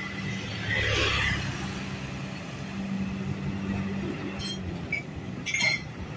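Tour bus engine running steadily as the coach approaches at low speed, with a short hiss about a second in and a few sharp clicks near the end.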